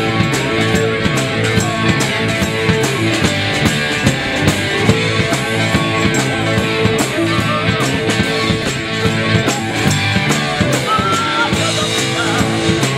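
Rock band playing live, with a drum kit keeping a steady beat under electric guitars and keyboard.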